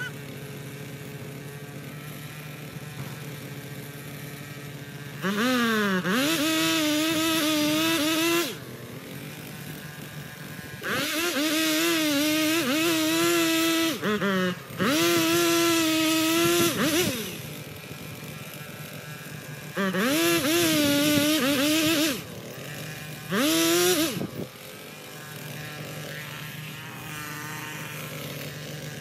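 Two-stroke chainsaw idling and throttled up five times for a few seconds at a time, each time rising sharply to a high, steady pitch as it cuts into a tree trunk, then dropping back to idle.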